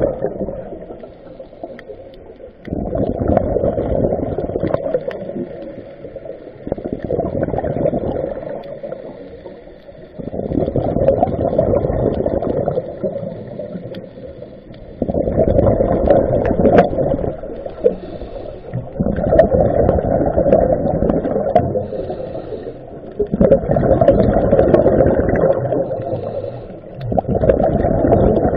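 Scuba diver's exhaled bubbles rushing and gurgling from the regulator underwater, in bursts of two to three seconds about every four seconds. Quieter pauses for inhalation fall between them.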